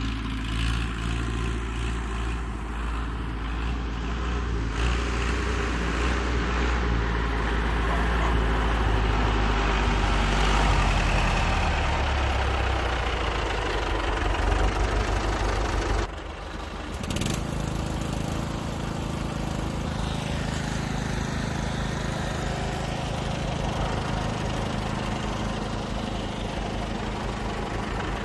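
Massey Ferguson tractor engine running, getting gradually louder over the first half. About two-thirds of the way through the sound breaks off and changes abruptly, then the engine runs on steadily with a regular throb.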